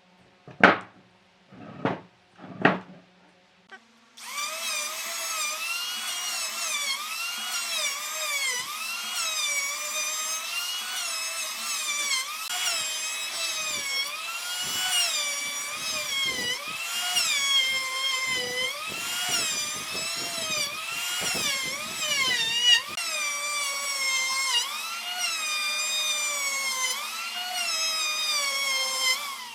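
Three sharp knocks, then a handheld power tool starts about four seconds in and runs with a steady high whine as it works the wood, its pitch dipping and recovering about once a second as the load changes.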